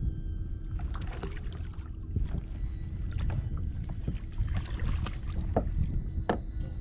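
Low rumble of wind on the microphone aboard a fishing kayak, with scattered small clicks and knocks and a faint steady high whine from about three seconds in.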